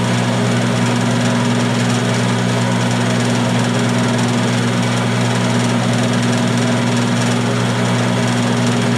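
Milling machine spindle running steadily at speed, turning an edge finder: a constant motor hum with an even hiss over it.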